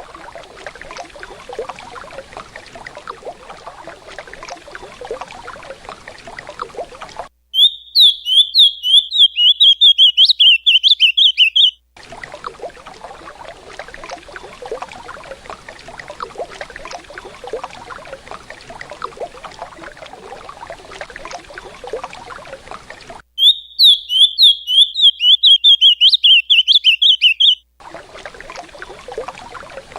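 Recorded song of an ultramarine grosbeak (azulão) in the 'Canto Paraná' dialect: two phrases of about four and a half seconds each, fast strings of high repeated notes. Between the phrases, the steady rush of river water.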